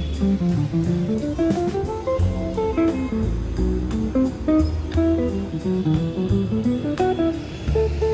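Background music: a jazzy plucked guitar melody over a bass line, with light percussion ticks.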